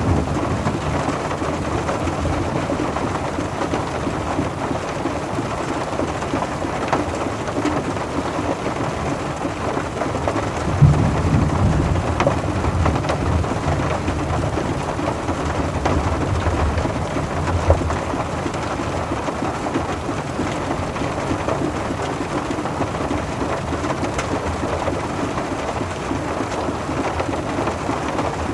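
Steady rain falling on a car, a dense even patter, with low rumbles of thunder a little past ten seconds in and again around sixteen seconds.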